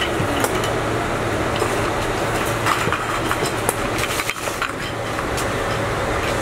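Steady workshop machinery din with a low hum, and scattered sharp clicks and clinks.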